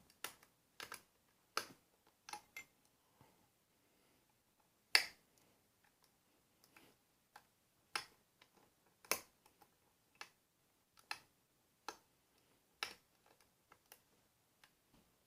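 Metal-on-metal clicks and taps of a diamond lock pick and tension wrench working the pin stack inside an Ilco lock cylinder during picking. The clicks are short, sharp and irregular, about one or two a second, with the loudest about five and nine seconds in.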